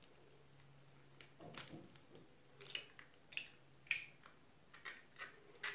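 Faint, scattered clicks and taps of eggshells being cracked and handled over a food processor bowl.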